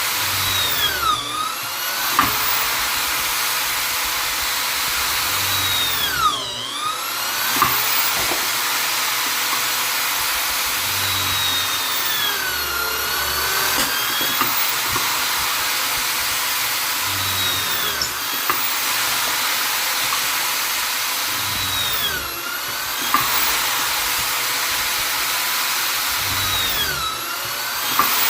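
Vonder electric drill-driver running continuously with a high motor whine; about every five seconds the motor speed sags and then climbs back up, six times in all, each time followed by a small click.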